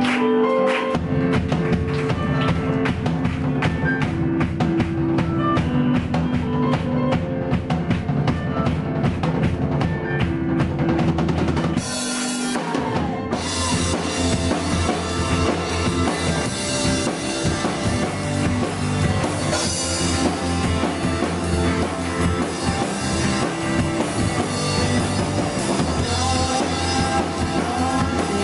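Live rock band playing: a drum kit keeps a steady beat under bass, guitars and keyboards. About twelve seconds in the low end drops out briefly, leaving a high cymbal wash, before the full band comes back in.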